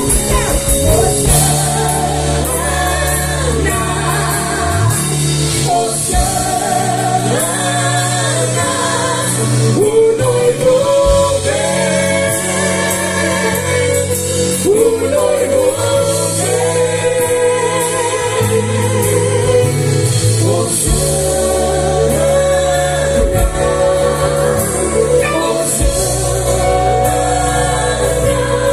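Gospel song performed by a band with singing: voices holding wavering notes over steady bass and accompaniment.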